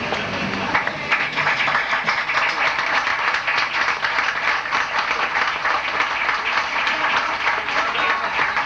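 A crowd applauding, many hands clapping, the clapping thickening about a second in and going on steadily, with people's voices under it.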